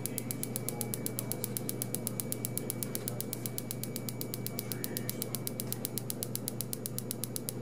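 PiezoWave Vet piezoelectric shockwave applicator firing, held against a dog's hip: rapid, evenly spaced clicks, about eight a second, over a low steady hum. Each click is one shockwave pulse of a therapy session for hip arthritis.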